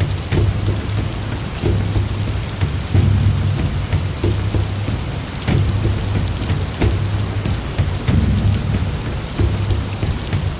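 Heavy rain pouring, with a steady low rumble underneath and scattered sharp taps throughout.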